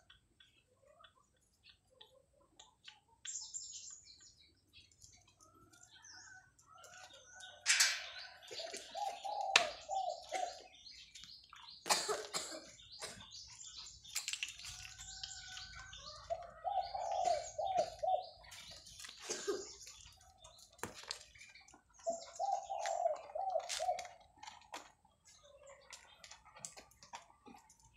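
Doves cooing in short, repeated phrases, with bumps and rustling from the dog-mounted camera as the dog moves.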